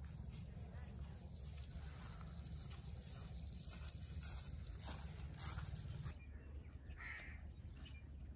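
Rural field ambience: an insect trills in rapid pulses for a few seconds over a low rumble of wind on the microphone, and a bird calls briefly near the end.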